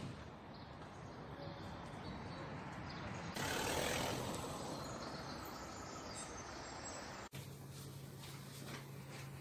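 Faint outdoor city ambience, a low even background noise that swells for a moment about three seconds in. After a sudden cut near the end, a steady low hum takes over.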